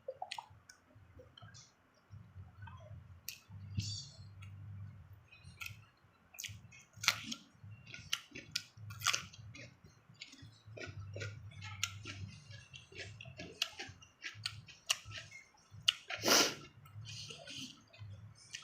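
Close-mic'd eating sounds of crisp, raw young cucumber and unripe mango: a crunching 'krup krup' on each bite, with muffled chewing between them. The loudest crunch comes about sixteen seconds in.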